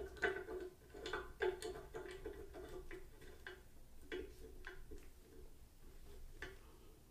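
Light, uneven metal clicks, roughly two a second, as the table lock handle of a Porter-Cable floor drill press is threaded by hand into the table.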